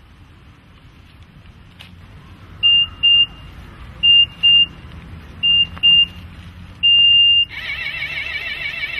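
Electronic beeper sounding three pairs of short high beeps about a second and a half apart, then one longer beep, then a loud warbling alarm that starts near the end and keeps going.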